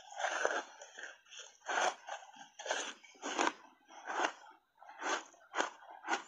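Close-up crunching of refrozen shaved ice dusted with matcha powder being bitten and chewed in the mouth: a string of sharp crunches, about one every half second to second.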